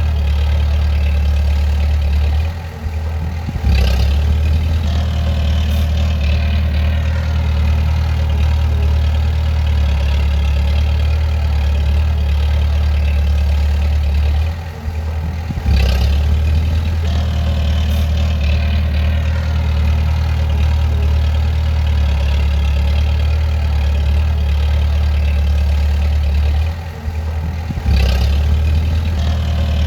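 Bulldozer's diesel engine running with a steady low drone. Three times, about twelve seconds apart, the drone briefly dips and a sharp clank follows.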